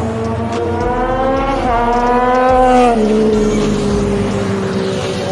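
Loud sport motorcycle engine accelerating hard, its note climbing and dropping sharply at two upshifts, about one and a half and three seconds in, then easing slowly lower.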